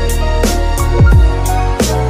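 Background music with a steady beat: deep bass drum hits with a dropping pitch about every 0.7 seconds under sustained bass and melodic notes.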